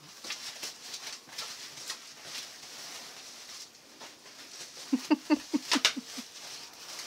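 Crinkling and rustling of plastic and foam packing wrap being pulled from a large boxed item. About five seconds in comes a quick run of about eight short, pitched yelp-like sounds, each a fraction of a second long.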